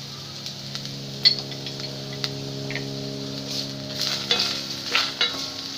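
Chopped red onions sizzling in oil in a stainless steel pan, with a sharp pop about a second in. From about halfway through, a wooden spatula scrapes and stirs them against the pan. A steady low hum runs underneath.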